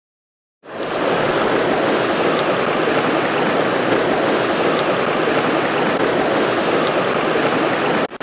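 Silence, then within the first second the steady rush of a shallow river running over a stony riffle.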